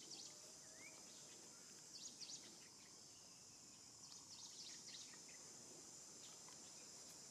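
Near silence: faint forest ambience with a steady high insect drone and a few short bird chirps in small clusters every couple of seconds.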